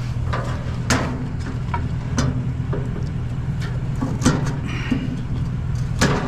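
A pickup truck's engine idling with a steady low hum, under a scattering of short metallic clanks and clicks as a metal gas grill is handled and worked on by hand, the loudest about a second in, past four seconds and near the end.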